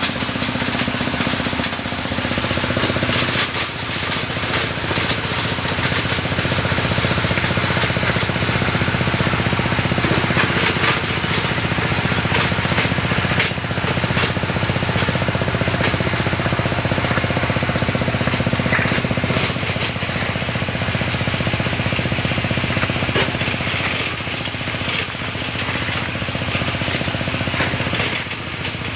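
River-stone grinding machine running steadily: a constant motor hum under dense, irregular clatter and hiss as the stone is crushed.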